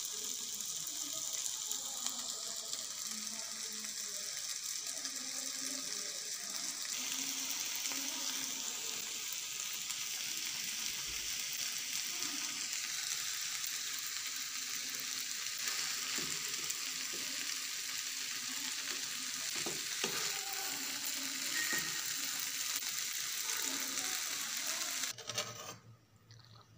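Rice vermicelli and vegetables sizzling in a hot frying pan as they are stirred and tossed with a fork and wooden spatula: a steady frying hiss that cuts off suddenly near the end.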